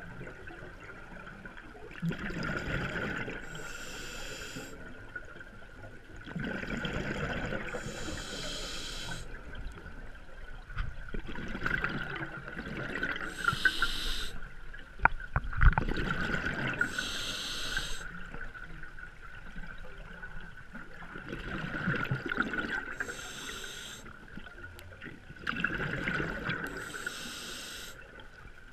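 Scuba diver breathing underwater through a regulator: a hiss on each inhale alternating with a rush of exhaled bubbles, repeating about every four to five seconds. A steady faint high tone runs underneath, and a couple of sharp knocks come around the middle.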